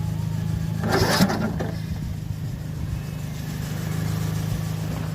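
MTD 15.5 machine's 500cc engine running steadily, with a short burst of noise about a second in.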